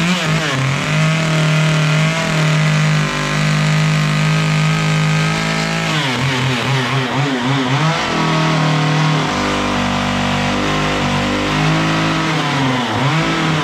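Chainsaw running at high revs as its tip cuts along a line in wood, with the engine easing off and coming back up about six seconds in and dipping again near the end.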